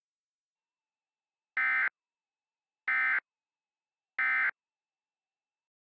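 Emergency Alert System end-of-message signal: three short identical bursts of SAME digital data tones, a little over a second apart, marking the end of the warning message.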